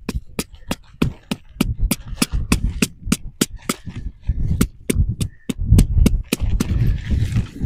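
Rapid, even taps, about three a second, of a tent peg being hammered into hard ground; they stop shortly before the end. Wind buffets the microphone with a low rumble.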